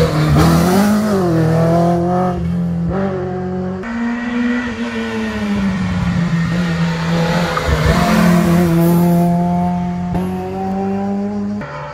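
Rally car engines taking a hairpin one after another: a white BMW rally car brakes into the bend and accelerates away, its pitch jumping several times as it shifts. Then a second car climbs through the turn with its engine revving higher.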